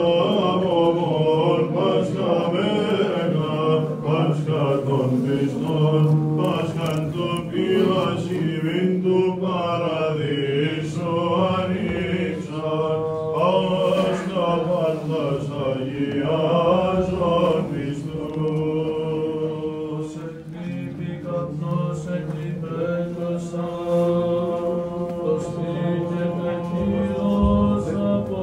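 Greek Orthodox Byzantine chant from the festal Vespers: a sung melody line that winds up and down in pitch over a steadily held low drone note (the ison).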